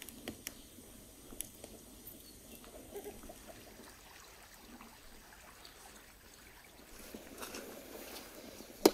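Faint outdoor ambience with a few small scattered clicks and taps. Just before the end comes one sharp metallic knock as a steel bowl is set down.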